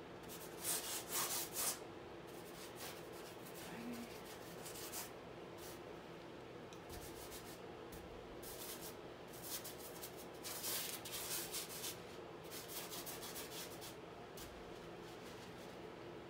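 Bristle paintbrush scrubbing paint across a stretched canvas in clusters of quick scratchy strokes, over a faint steady low hum.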